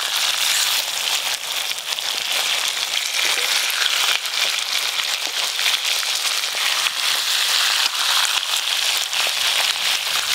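Rohu fish pieces frying in hot oil in a wok: a steady sizzle dotted with many small crackles as they are turned to fry the other side.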